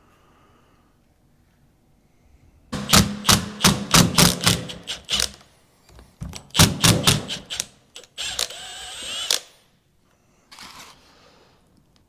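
Metal injection-pump parts being handled on a workbench: two quick runs of sharp metallic clicks and knocks, then a scrape lasting about a second.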